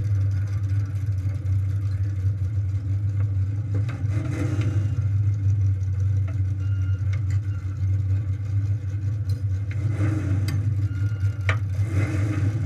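600cc micro sprint engine running steadily at low speed, holding one pitch without revving, with a few scattered clicks.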